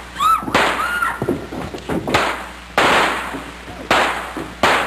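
Staged stunt-show brawl: a string of five loud bangs and crashes in under five seconds, each ringing off briefly, with short high shouts near the start.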